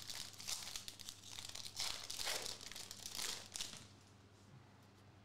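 Foil wrapper of a Prizm Premier League trading-card pack being torn open and crinkled: a run of crackling rustles that stops about four seconds in.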